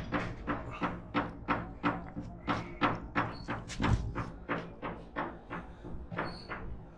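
Steady low hum of a ship's machinery, with a rapid run of sharp knocks, about three to four a second.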